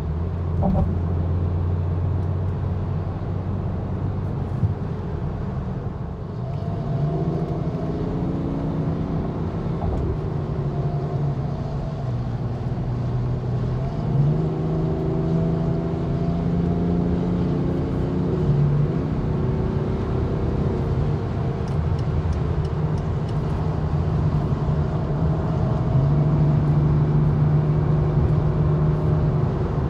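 Cabin noise inside a BMW X6 xDrive40d at autobahn speed: its twin-turbo diesel straight-six pulls steadily under a constant rumble of road and tyre noise. The engine note rises slowly and drops back several times.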